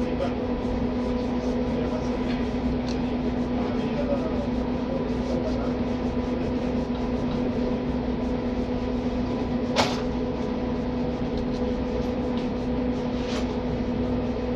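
Steady mechanical hum with a constant low tone, with a sharp click about ten seconds in and a fainter one near the end.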